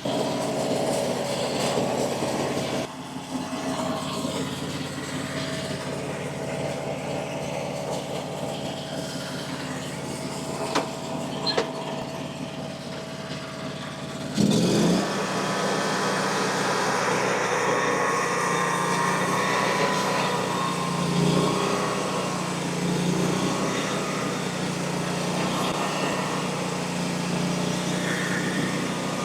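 Frontier OS35 bandsaw sawmill's small engine running steadily at low speed, then about halfway through it revs up quickly and holds a louder, higher running speed.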